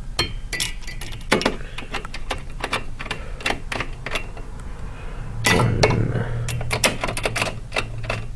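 Screwdriver clicking and ticking in quick, irregular strokes as the CPU cooler heatsink screws are driven in, with a low hum joining about five seconds in.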